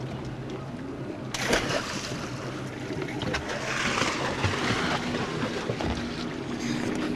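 Outboard boat motor idling with a steady low hum, under the hiss of water and wind, which gets louder suddenly about a second and a half in.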